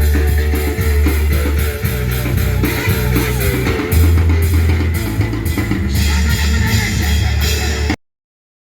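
Band music with a drum kit and guitar over a heavy low bass and a steady beat. It cuts off abruptly about eight seconds in.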